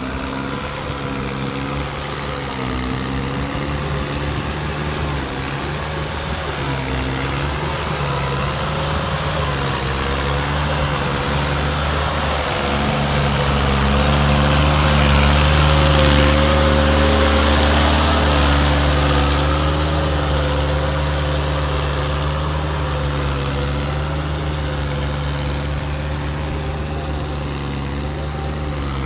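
Sonalika GT-22 compact 4WD tractor's diesel engine running steadily under load while pulling a rotavator through a flooded paddy field for puddling. The sound swells to its loudest about halfway through as the tractor passes close, then eases off as it moves away.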